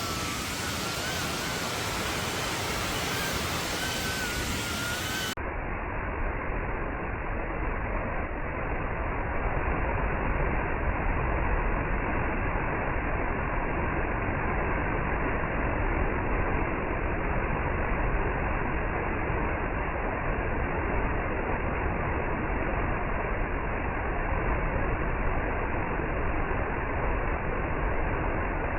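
Waterfall, its water rushing in a loud, steady roar. A faint wavering whistle sits over it for the first few seconds, and after about five seconds the sound turns duller.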